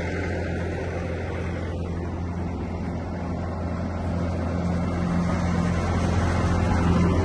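Diesel engine of a Bobcat T590 tracked skid steer running steadily with a deep drone, growing somewhat louder in the second half.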